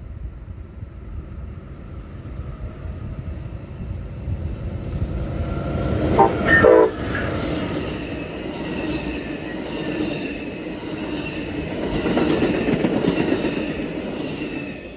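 Amtrak Pacific Surfliner passenger train approaching and passing at speed, its rumble building steadily. A short horn blast sounds about six seconds in, the loudest moment, then the bilevel cars rush by with wheel and rail noise that falls away near the end as the last car passes.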